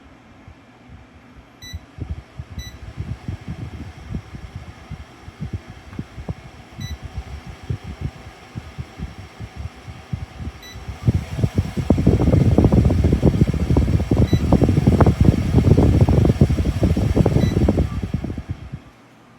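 A bladeless tower fan's air stream buffets the microphone in gusty low rumbles, much stronger from about 11 seconds in and dropping off near the end. About six short electronic beeps from the fan sound over it.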